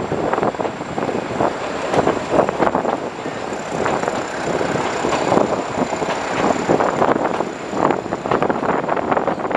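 Nilgiri Mountain Railway carriage in motion, heard from beside its open window: a steady rumble of the running train with frequent irregular clacks of the wheels on the track.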